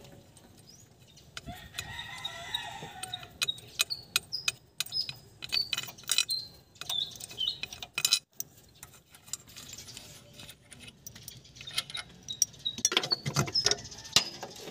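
Hand tools and bolts clicking and clinking in irregular metal taps as the nuts and bolts of the engine support bracket are undone and lifted off. A drawn-out pitched call sounds in the background about two seconds in.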